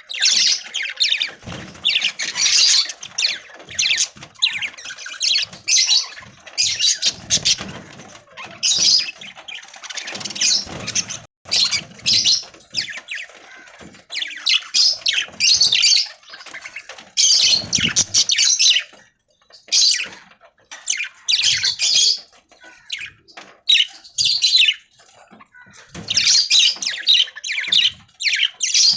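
A flock of budgies (budgerigars) chattering, chirping and squawking in rapid, overlapping bursts with brief pauses.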